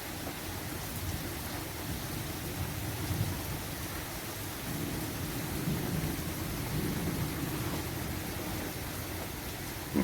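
Steady rain with low rolling thunder rumbling beneath it, swelling about three seconds in and again for a few seconds in the middle.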